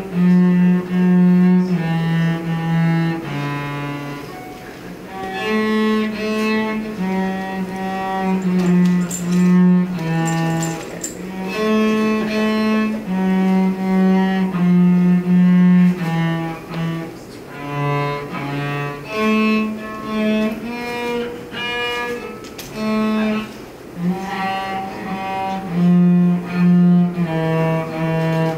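Cello bowed by a player whose bow is held in a 3D-printed prosthetic bow holder, playing a slow tune of held notes, each about half a second to a second long, low in the instrument's range.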